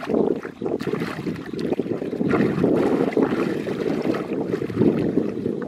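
Wind buffeting the microphone, with muddy water sloshing and splashing as hands grope through shallow paddy water.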